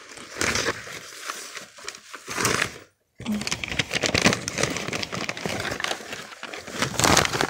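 Packing paper crinkling and rustling as hands pull the wrapping open, with a brief break about three seconds in.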